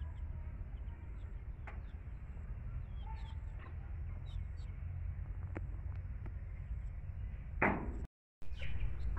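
Low wind rumble on the microphone, with a few faint, short peeps from young domestic chicks feeding in the yard. There is one sharp knock near the end, and then the sound cuts out for a moment.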